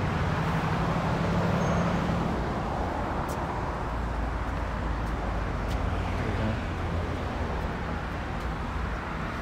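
Road traffic noise: a steady engine hum for the first couple of seconds, then a vehicle's low rumble swelling about halfway through and easing off.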